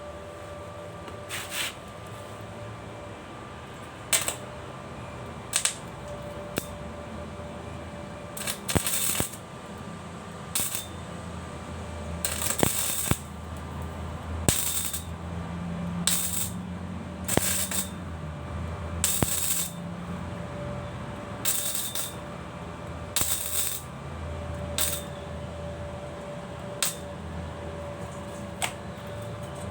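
Arc welding on iron: short bursts of welding arc noise, one every second or two, as the joint is tacked and welded in short runs, over a steady hum.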